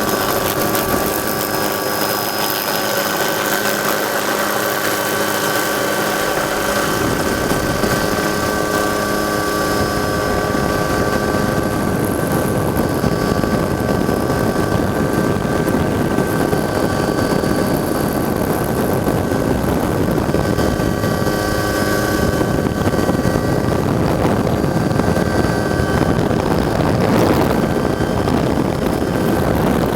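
Helicopter in flight, its rotor and engine noise steady throughout, with a constant high-pitched whine.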